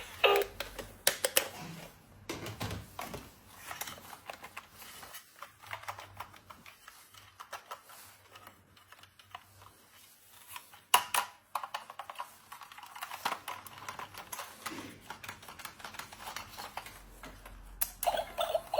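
Irregular small clicks, taps and light rattles of hands handling small plastic toy pieces and packaging, with a louder flurry of clicks about eleven seconds in.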